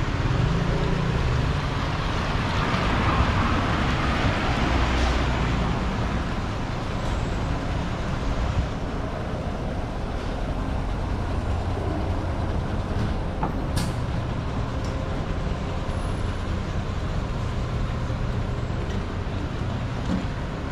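Street traffic on a wet road: a vehicle passes in the first few seconds with a swell of tyre hiss and low engine rumble, over a steady hiss of rain. A single sharp tick comes about two-thirds of the way through.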